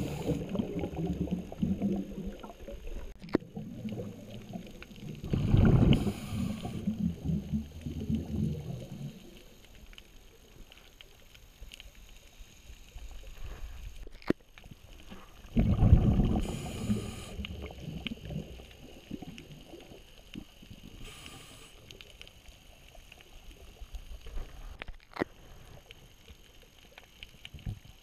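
Underwater bubble noise heard through a camera housing: three loud low rumbling, gurgling bursts of a second or two, near the start, about five seconds in and about fifteen seconds in, typical of a scuba diver exhaling through a regulator, with a few faint clicks between them.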